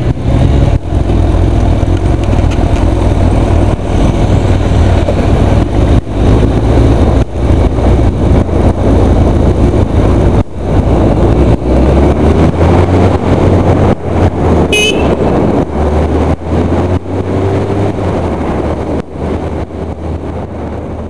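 Heavy wind buffeting on a head-mounted microphone while riding a Suzuki GSF600S Bandit, with the bike's inline-four engine running underneath. The engine note rises about two-thirds of the way through as the bike accelerates.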